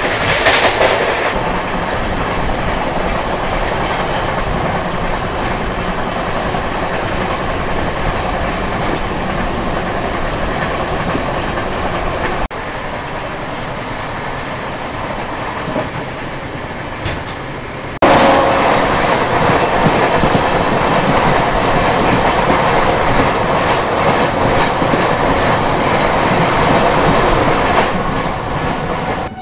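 Running noise of a moving passenger express train heard from inside the coach and at its open door: a steady rumble with wheels clicking over the rail joints. It drops slightly about twelve seconds in, then jumps louder about eighteen seconds in.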